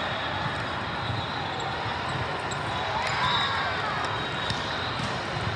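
Volleyball game in a large sports hall: a steady crowd hubbub with occasional ball hits, and a few sneaker squeaks on the court about three seconds in.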